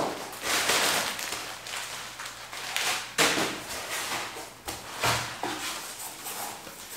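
Plastic wrapping and bubble wrap rustling and crinkling as packed items are handled and lifted out of a cardboard box, with a few sharp clicks and knocks.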